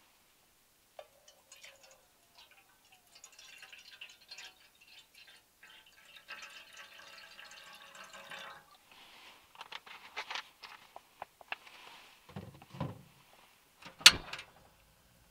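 Liquid poured from a bottle into a pot, with small clicks from handling bottles and caps and a couple of soft thumps as things are set down. Near the end, one sharp loud click as the knob of a portable gas stove is turned to light it.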